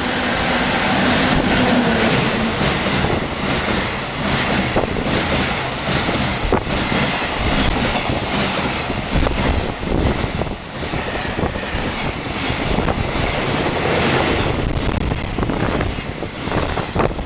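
A freight train passes through the station at speed: the locomotive goes by first, then a long string of container wagons and tank cars. It is loud and steady throughout, with the wheels clattering, and it falls away right at the end as the last wagons clear.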